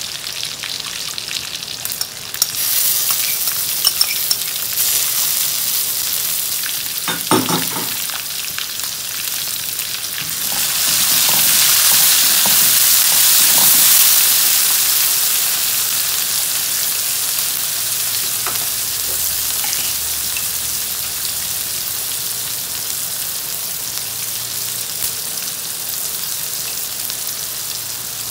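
Oil sizzling in a steel wok with whole spices and curry leaves frying in it, with scattered small pops. The sizzle grows louder about ten seconds in, once chopped onion has gone into the pan, and a spatula stirs it.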